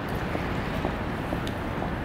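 Steady low rumbling background noise of an urban outdoor space, with faint soft ticks about twice a second.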